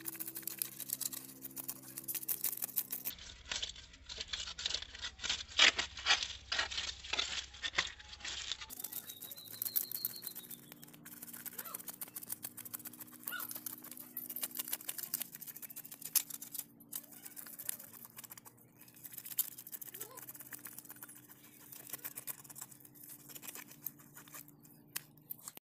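A knife scraping the scales off a whole fish on a concrete floor: a quick, irregular run of short rasping scrapes, densest and loudest a few seconds in.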